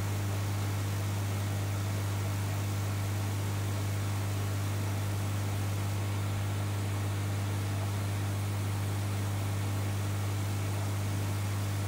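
Aquarium equipment humming steadily: one even, low hum under a constant hiss, with no change throughout.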